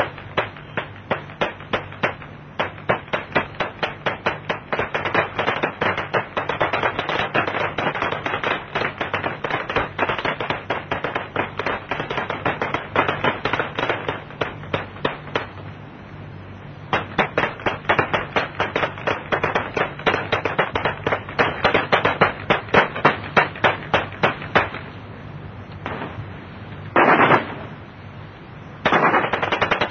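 Sustained rapid gunfire, several shots a second, over a steady low hum. After about 25 seconds it thins out to one short burst, then picks up again just before the end.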